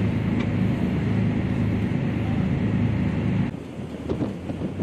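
Combat Boat 90's twin diesel engines running steadily with the boat under way. About three and a half seconds in the sound changes abruptly to wind buffeting the microphone and water rushing past the hull.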